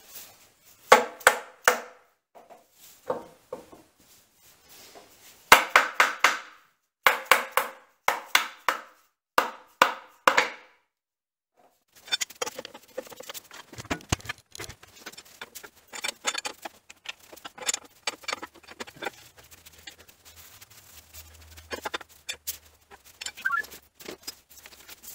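Scrubbing the column of a Kearney & Trecker milling machine by hand: bunches of two to four quick, rough strokes for about the first ten seconds, then after a brief pause a run of lighter, scratchy rubbing with small clicks.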